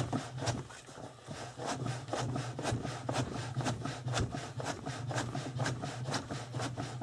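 Wooden hide breaker in use. Its toothed wooden lever is pumped rapidly down into the slotted base over a folded tanned goatskin, giving about three knocks a second with the hide rubbing and scraping against the wood. This is the final softening stage of dressing the skin.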